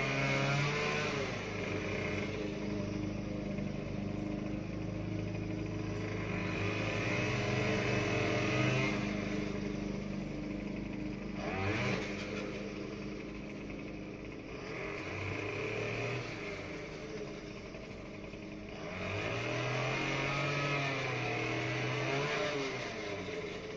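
Small gasoline engine of outdoor power equipment running continuously. Its note shifts up and down every few seconds as the engine speed changes.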